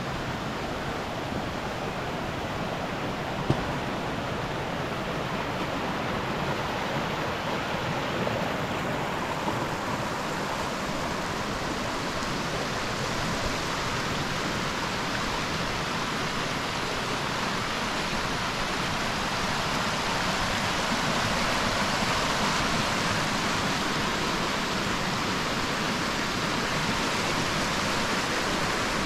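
Shallow spring-fed stream rushing over rocks: a steady hiss of running water that grows gradually louder and brighter from about a third of the way in.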